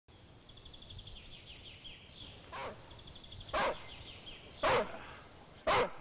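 A search-and-rescue dog barking four times, about a second apart, the first bark fainter than the rest. A songbird sings a fast high trill twice behind it.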